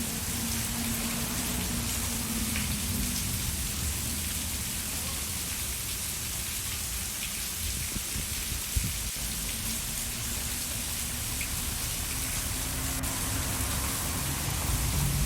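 Steady rain falling: an even hiss of drops with a low rumble underneath, and one sharp drip-like tick about nine seconds in.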